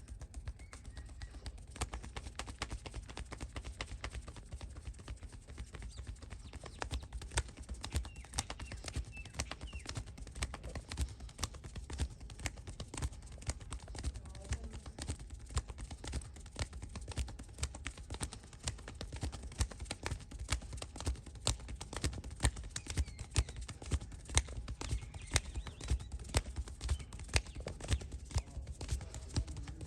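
Massage hands rapidly tapping and slapping on a person's head and back: a continuous run of quick percussive strikes, several a second, some louder than others.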